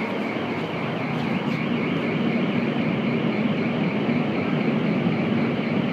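Steady running noise of an automated people-mover tram heard from inside the car: a continuous low hum and rush with a faint wavering whine above it.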